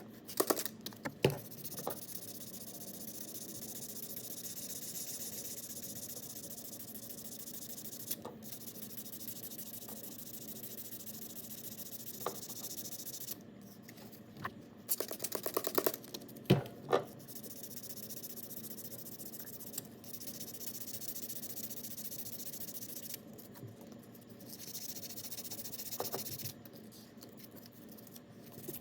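Sandpaper rubbing on the JB Weld-filled seal surface of an outboard propeller shaft: long stretches of steady hissing scrape with short pauses between them. A few sharp clicks and knocks come through, the loudest about a second in and again midway.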